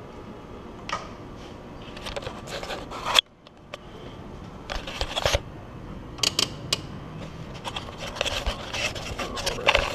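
Rustling, scraping and small irregular clicks of a wiring harness and its connectors being handled and worked into place on an engine.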